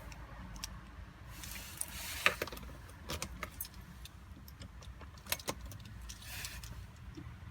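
Car keys jangling with a series of sharp clicks as the ignition key of an Alfa Romeo 166 is worked, over a steady low rumble. The car will not start, with the immobiliser code symbol showing.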